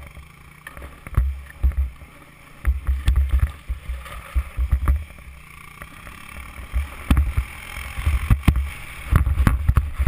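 Wind buffeting the microphone in uneven, rumbling gusts, with hissing and scraping from a rider sliding over snow while towed behind an ATV. Sharp knocks and clicks come through now and then.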